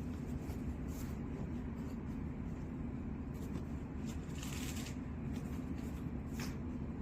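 Steady low hum and rumble of running machinery or moving air, with a few light clicks and a brief rustling noise about four and a half seconds in.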